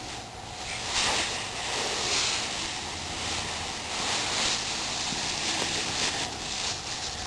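Dry autumn leaves rustling and crunching as a child jumps into a leaf pile and wades through it, in a run of soft swells with the loudest about a second in.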